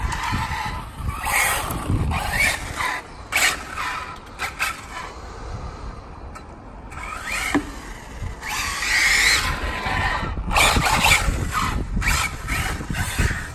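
Radio-controlled Arrma Typhon rally car with its electric motor whining in repeated bursts of throttle, the pitch rising and falling as it speeds up and slows, with tyre noise on the asphalt.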